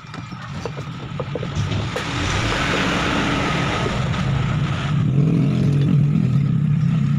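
A motor-driven machine running: a steady low hum with a hiss above it, building up over the first two seconds and then holding level, with a few clicks near the start.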